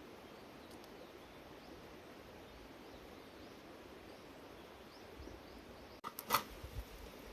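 Faint outdoor background with a few soft high chirps, then, about six seconds in, a sudden sharp clatter followed by a few dull knocks.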